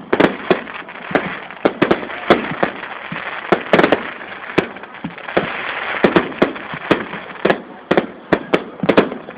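Aerial fireworks bursting: an uneven string of sharp bangs, two to three a second, over a continuous crackle between them.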